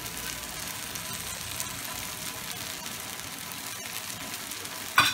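Eggplant bharta sizzling gently in a nonstick pan on the stove, a steady soft crackle. About five seconds in, a short sharp knock of the spoon in the pan.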